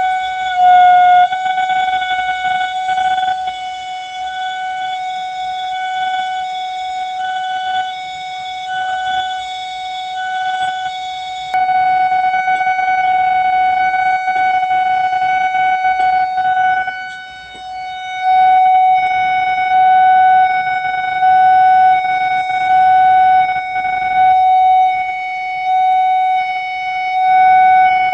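Railway level-crossing warning alarm sounding: a loud, steady electronic siren tone with overtones, pulsing in a repeating pattern about every second and a half and stepping up in loudness about halfway through. The alarm signals that a train is approaching the crossing.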